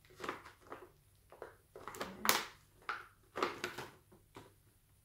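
Clear plastic blister packaging of a set of Christmas baubles crackling and clicking irregularly as it is handled and pried at, with the sharpest crack about two seconds in.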